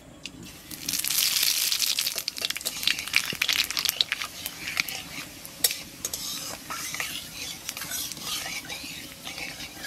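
Radhuni (wild celery) seeds and kalonji (nigella) seeds dropped into hot oil in a metal kadai. They sizzle and crackle sharply from about a second in, then ease off as a spatula stirs and taps against the pan.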